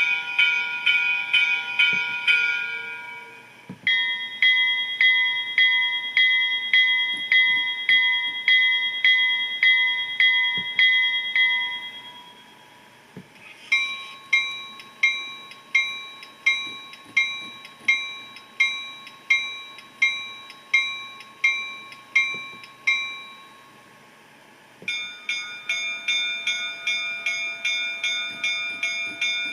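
Recorded diesel locomotive bells played by a TCS WOWSound V4 DCC sound decoder. Four different bells ring one after another, each a steady run of strikes. The first three ring about one and a half strikes a second, and the last, starting near the end, rings about twice as fast.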